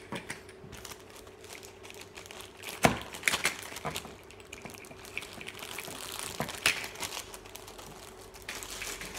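Thin clear plastic bag crinkling and rustling as it is handled, with small clicks throughout and a sharper knock about three seconds in.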